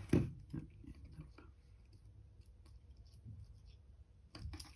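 Small clicks and taps of tools and tiny phone parts being handled and set down during an iPhone disassembly. The sharpest tap comes at the very start, then scattered light clicks, and a short run of clicks near the end.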